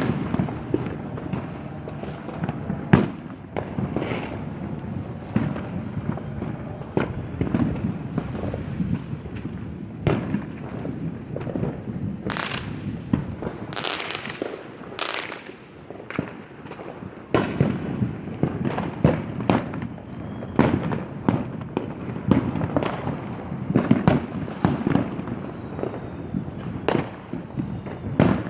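Fireworks going off all over a city at once: a continuous rumble of distant booms with frequent nearer, sharper bangs, and a few louder crackling, hissing bursts about halfway through.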